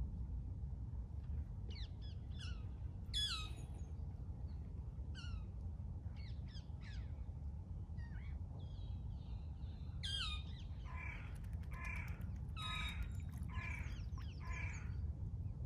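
A crow cawing: a run of five harsh caws about a second apart in the last third, with other birds giving short falling calls earlier, over a steady low rumble.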